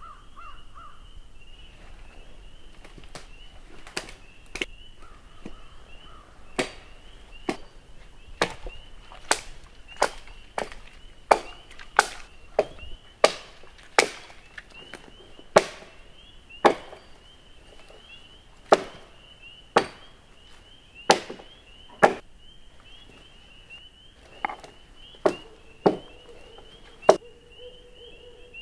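Small axe chopping the branches off a felled cedar sapling: a long run of sharp wooden chops, roughly one a second at an uneven pace. A steady high chirring chorus carries on behind the chops.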